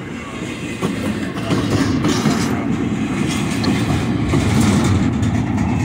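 A train rolling past, a steady loud rumble of wheels on rails.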